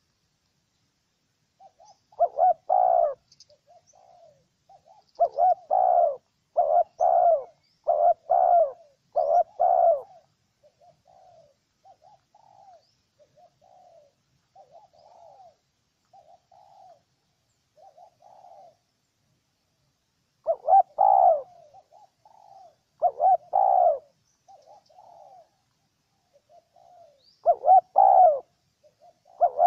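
Spotted dove cooing: loud phrases of several low, hollow coo notes, repeated in bursts with pauses between them, and fainter coos in the gaps.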